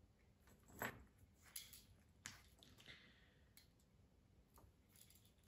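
Faint clicks of a hand crimping tool working a metal crimp sleeve on a wire fishing trace: a handful of short, sharp clicks, the loudest about a second in.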